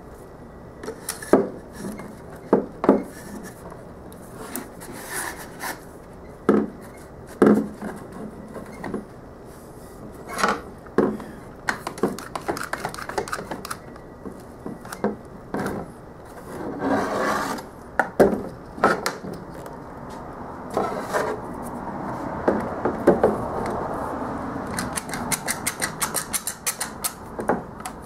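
Knocks and clatter of PVC pipe, a plastic bucket lid and one-handed bar clamps handled on a wooden workbench, with stretches of scraping and rubbing. Near the end comes a fast run of ratcheting clicks as the bar clamps are squeezed tight.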